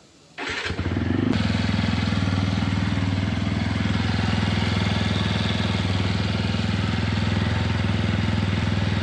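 TVS Apache RTR 160 4V single-cylinder motorcycle engine starting up about half a second in, then running steadily. It carries the persistent noise the owner calls a terrible sound, which he takes for a chain and sprocket problem.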